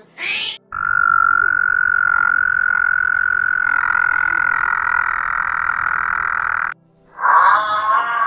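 Frog calling: one long, steady high-pitched call lasting about six seconds that cuts off suddenly. Near the end a different, wavering sound begins.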